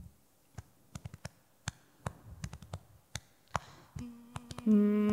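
Sparse, irregular clicks and taps, then near the end a woman starts humming one steady low note, faint at first and then loud and held.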